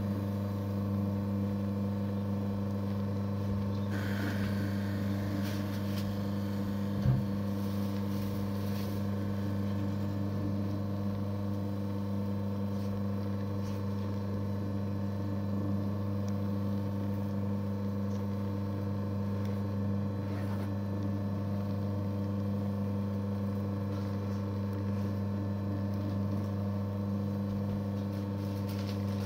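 Electric mochi maker's motor humming steadily as its paddle turns and kneads steamed glutinous rice into mochi. One short low thump about seven seconds in.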